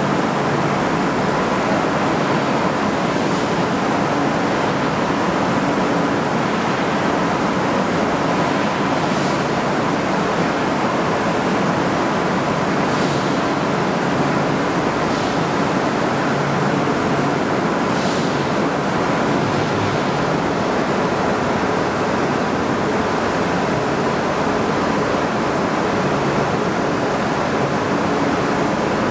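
Yangdong Y490D four-cylinder diesel engine running steadily at constant speed, with a thin steady high whine above its noise.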